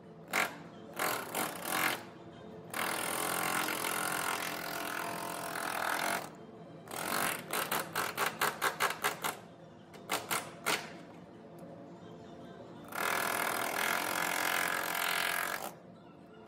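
Pneumatic air tool run in bursts against the sheet-metal rocker panel of a car body: a few short blips, a sustained run of about three seconds, a quick series of short trigger pulses, then another long run near the end.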